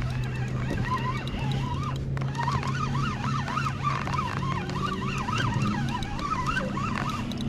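Many animal calls overlapping, wavering up and down in pitch, over a steady low hum.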